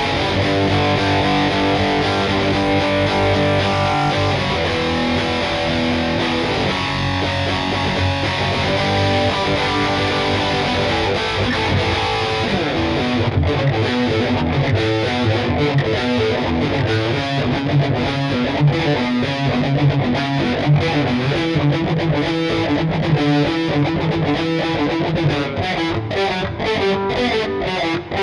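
Schecter C1 Elite electric guitar played with a distorted tone and a little reverb. Held lead notes at first; from about halfway, fast, choppy picked runs.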